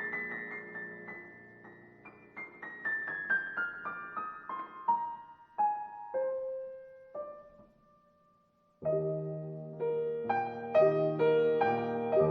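Background piano music: a run of single notes stepping downward, a brief pause, then fuller chords come in about nine seconds in.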